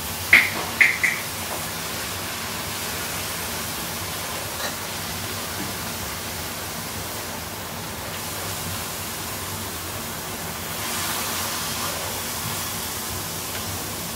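Shredded zucchini in a butter and sour cream sauce sizzling in an electric skillet: a steady hiss, with a few short squeaks of the silicone spatula against the pan about a second in.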